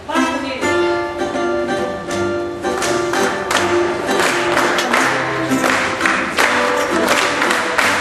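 Portuguese guitar and classical fado guitar playing an instrumental introduction, with a run of quick plucked notes that grows fuller and busier about two and a half seconds in.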